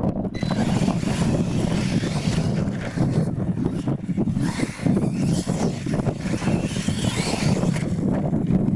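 Losi LMT radio-controlled monster trucks racing on dirt, their brushless electric motors whining up and down in pitch, with wind rumbling on the microphone.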